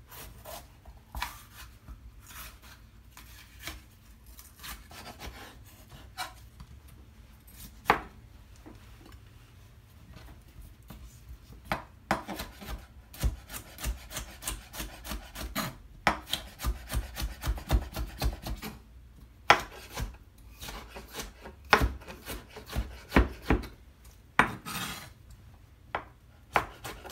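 Chef's knife slicing a red bell pepper on a plastic cutting board, the blade knocking against the board with each cut. The first half has a few scattered cuts, then a quick run of strokes of about three or four a second sets in about halfway through.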